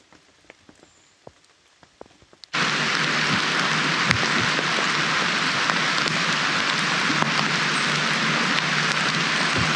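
Single water drops falling off a rain-soaked tarp edge into a bottle, scattered ticks. About two and a half seconds in, a sudden switch to steady, loud rain.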